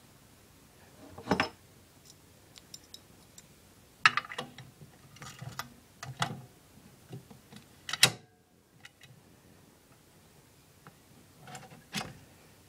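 Metal clicks and rattles of a triangular railway key being fitted into and turned in the lock cylinder of a Dutch Mat '64 train door control panel, with a sharp click about eight seconds in. Near the end there is another click as a button on the panel is pressed.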